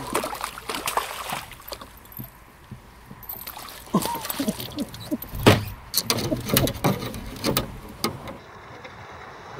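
Water splashing as a hooked trout is scooped into a landing net beside a small boat, then a run of sharp knocks and thumps as the net with the fish is lifted aboard and the fish thrashes against the boat, the loudest knock about five and a half seconds in.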